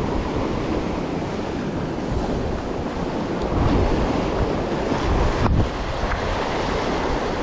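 Sea surf breaking and washing over the shore rocks, with wind buffeting the microphone.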